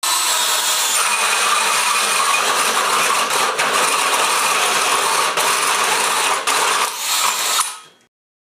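DeWalt 18-volt cordless drill spinning a Hole Pro hole cutter through sheet material, a steady cutting noise with a few brief catches, starting suddenly and stopping about eight seconds in.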